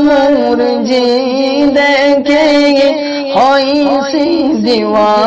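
Solo voice singing a Bangla Islamic ghazal in a long, wavering melismatic line with no clear words.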